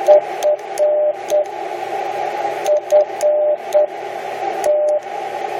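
Morse code sidetone from a ham transceiver keyed with the microphone's up/down buttons: a single-pitch beep sending dit-dit-dah-dit (the letter F) twice, then one long dah near the end. It sounds over a steady band of receiver hiss.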